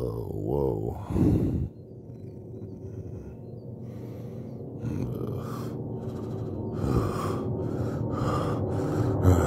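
A person's shocked, wavering cry, then rapid panicked gasping breaths about twice a second that grow steadily louder over a low steady drone.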